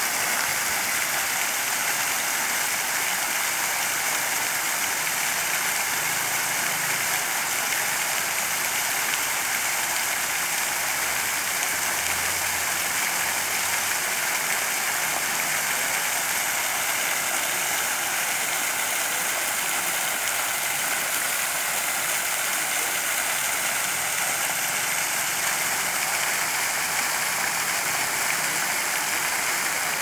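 Fountain jets spraying and splashing back into the pool: a steady, even hiss of falling water.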